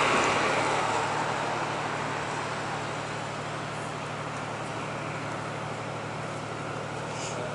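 Steady low machinery hum, with a rushing noise that fades away over the first couple of seconds.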